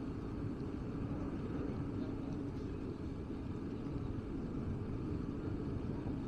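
Steady low rumble of city street ambience, with no distinct events standing out.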